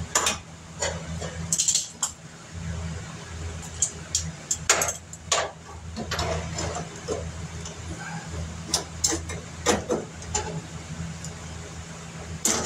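Irregular metallic clinks and knocks of hand tools and sheet metal being handled during auto body repair, over a steady low hum.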